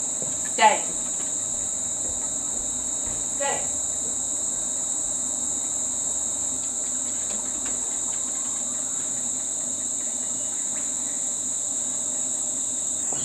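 A steady, high-pitched chorus of insects. Two brief pitched calls break over it, the louder about half a second in and a fainter one a few seconds later.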